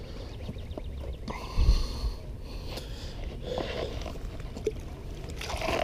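Low rumble of wind and handling on a body-worn camera microphone, with a few short breaths through the nose, and a sharp knock right at the end.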